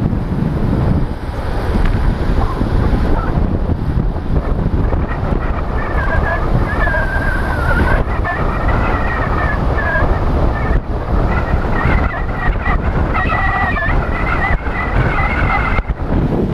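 Wind buffeting the microphone of a helmet-mounted GoPro in an open skeleton housing as a road bike rides at race pace. A loud, steady rumble of wind noise is heard, and from about six seconds in a wavering high whistle sits on top of it.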